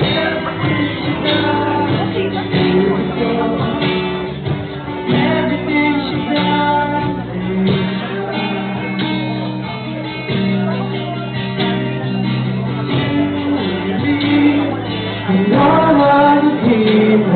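A live band playing and singing: several voices over guitars, in a large echoing hall.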